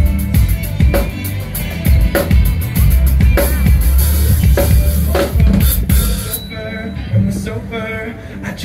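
Live pop-rock band playing an instrumental passage: a steady drum-kit beat over heavy bass with guitars. About six seconds in the bass and kick drum drop out, leaving lighter guitar notes and drum hits.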